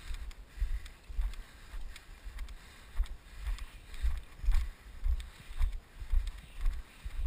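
Walking footsteps on grass, heard through a body-worn camera as low thuds about two a second, with a little wind on the microphone.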